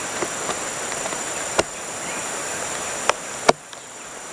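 Plastic lid of a self-heating meal box pressed down onto its tray, giving three sharp clicks, the last the loudest, over a steady high drone of insects.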